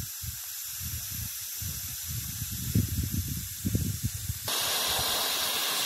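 Pressure cooker on a wood fire hissing as steam escapes from its weight valve. About four and a half seconds in the hiss becomes suddenly louder and fuller as it vents harder. Irregular low rumbling runs underneath.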